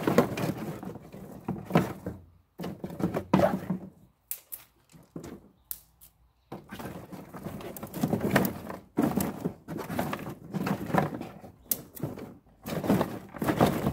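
Dry pruned fruit-tree branches clattering and scraping against each other and the plastic tub as they are laid by hand into its bottom: irregular knocks and rattles, with a short lull about halfway through.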